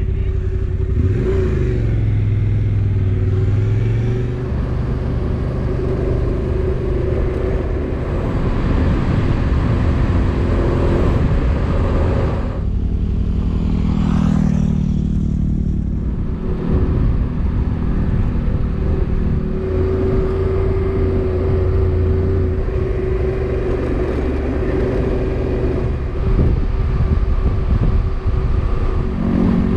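Motorcycle engines running under way on the road, the engine note rising and falling with the throttle.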